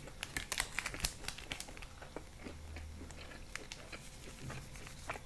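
Small plastic condiment sachet being crinkled and torn open, a quick cluster of sharp crackles in the first second and a half, then sparser crinkles and ticks as the sauce is squeezed out.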